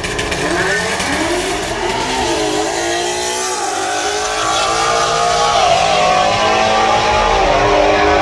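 Two drag-racing cars accelerating hard down the strip, engine pitch climbing through each gear and dropping back at the shifts, then rising more slowly at high speed.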